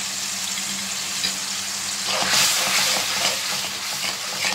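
Blended tomato paste with freshly added ground spices sizzling in oil in a metal pan. From about two seconds in, a steel spoon stirs and scrapes through it, and the sizzle gets louder and more ragged.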